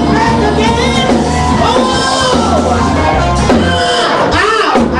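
Gospel choir singing with a lead singer over instrumental accompaniment with a steady bass line.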